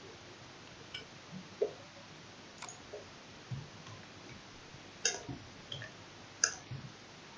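Computer keyboard and mouse clicks, a handful of short, sharp, irregularly spaced taps, as a line of text is copied and pasted; the loudest come about five and six and a half seconds in.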